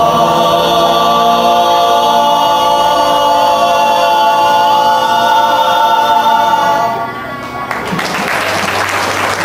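Male vocal group singing a Vietnamese folk song a cappella, holding a long final chord that ends about seven seconds in. Audience applause starts about a second later.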